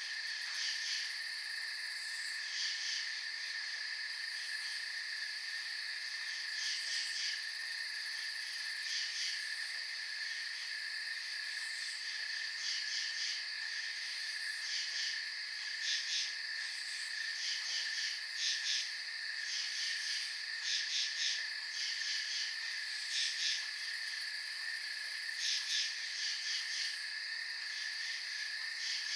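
Night insect chorus in a field: a steady high trill runs throughout, while crickets chirp in short pulsed bursts every second or two.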